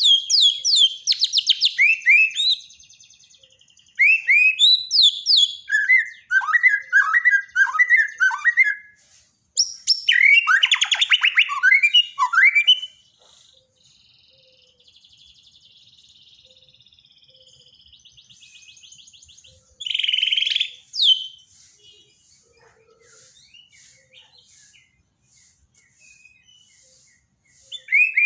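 White-rumped shama (Bornean murai batu) singing: long runs of rich whistled phrases mixed with rapid chattering notes, in three loud bursts over the first thirteen seconds and a short phrase about twenty seconds in, with only faint notes in between.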